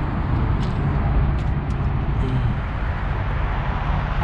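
Engine running steadily, a low rumble, with a few faint ticks about a second in.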